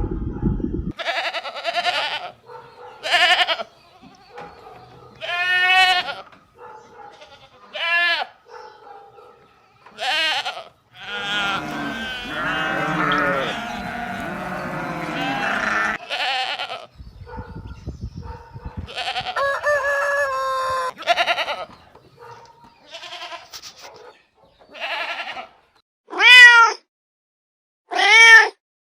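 Goats bleating: a string of separate short, wavering calls, several overlapping in a chorus midway, the loudest ones near the end.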